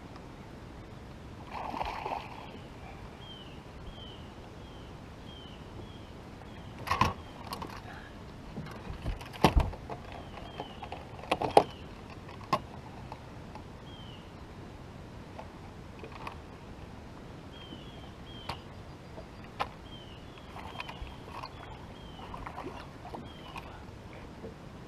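Handling sounds aboard a fishing boat on the water: several sharp knocks and clatters, loudest a third of the way in, over a steady low hiss. Short high chirps repeat every second or so throughout.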